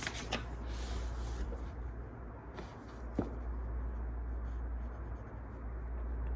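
Pen scratching on paper in short strokes, most busily in the first second and a half, over a steady low hum, with a few soft crackles, the clearest about three seconds in.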